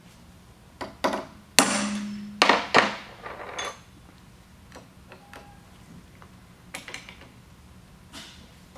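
Steel hand tools clinking and clanking against a pallet-jack hydraulic pump body and vise as a flathead screwdriver is worked at a stuck valve housing. A cluster of clanks comes in the first few seconds, the loudest ringing briefly, then only faint clicks.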